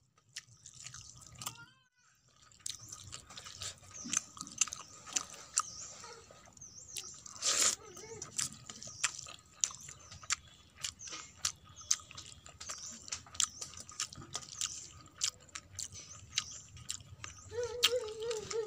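Fingers squishing and mixing watery panta bhat (soaked rice) with fried vegetables on a steel plate: many small, irregular wet clicks and squelches, with one louder one about seven and a half seconds in. A brief wavering pitched sound comes in near the end.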